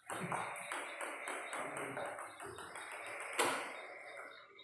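Table tennis ball clicking against the bats and the table in a rally, one light tap after another. One sharp, louder hit comes about three and a half seconds in.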